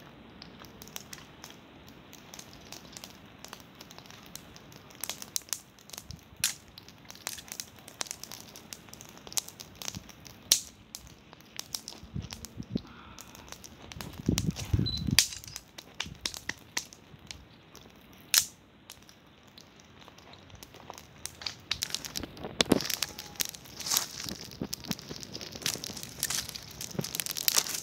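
Small campfire of dry twigs crackling with scattered sharp pops, mixed with crunching and rustling of dry leaves and sticks being handled. About halfway there is a short run of heavier knocks as the wooden spits are worked into the ground, and the crackling and rustling grow busier near the end.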